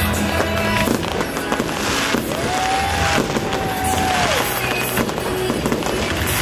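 Aerial fireworks display: shells bursting with rapid pops and dense crackling, one after another, with music playing behind.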